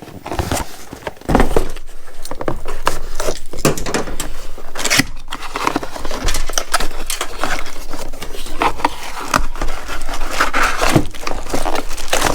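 Cardboard tool box being opened and its packaging handled: a dense, irregular run of crackling, scraping and knocks.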